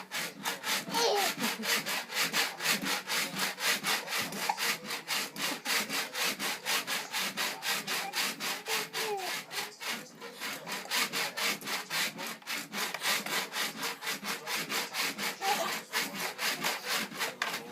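Steady rhythmic scraping, about five strokes a second, with a few faint squeaky glides in between.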